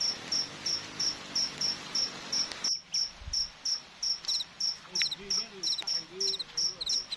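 Insects chirping in a steady, regular pulse of high chirps, about two and a half a second, with a second insect's doubled chirp joining about halfway through.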